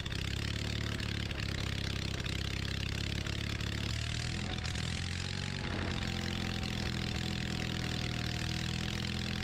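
Onan BF43M flat-twin engine running steadily with no muffler fitted, as its carburetor is being adjusted. The engine speed rises slightly about four to five seconds in and then holds.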